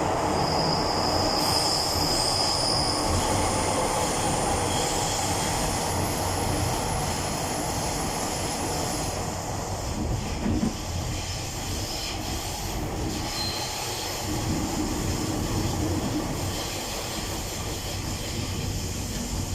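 MTR M-Train electric multiple unit of the Disneyland Resort Line running along the track with a steady rumble of wheels and running gear. A high wheel squeal rings out from about half a second to three seconds in, with fainter squealing after it, and there is a single knock about halfway through.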